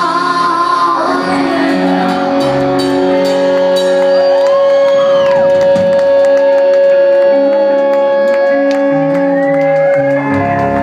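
Live rock band on electric guitar and bass guitar, loud, holding a long sustained note through most of the stretch, with shouts and whoops over it.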